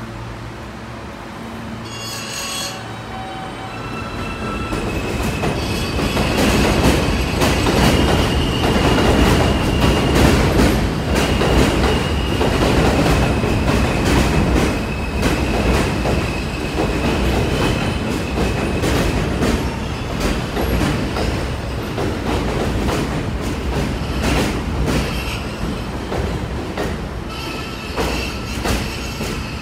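New York City Subway R160 train running along an elevated steel structure. The rumble builds over the first several seconds, then eases slowly, with rapid rail-joint clicks and a steady high-pitched wheel squeal that holds almost throughout.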